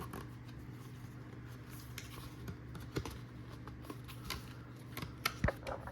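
Hands working at a cardboard box and its packaging: irregular small clicks, taps and rustles, with a sharper knock about three seconds in and a few more near the end, over a low steady hum.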